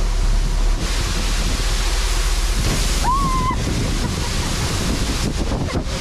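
Waterfall spray and falling water, a steady loud rushing hiss, with wind buffeting the microphone; it swells in about a second in. Halfway through comes one short high-pitched vocal exclamation.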